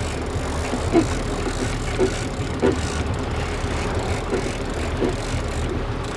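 Boat engine running steadily under way at trolling speed, with wind and water noise. A few short knocks and clicks come as a big-game trolling reel is wound by hand.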